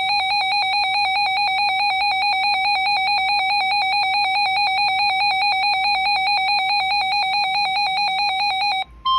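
A weather alert radio's electronic beeper sounding a rapid, evenly pulsed alarm, the sign that a warning has just been received. It cuts off just before the end, and the steady NOAA Weather Radio warning alarm tone starts in its place.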